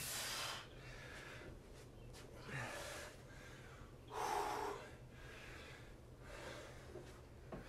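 A man breathing hard from exertion during bodyweight exercise: about four heavy, breathy puffs a couple of seconds apart, the loudest about four seconds in.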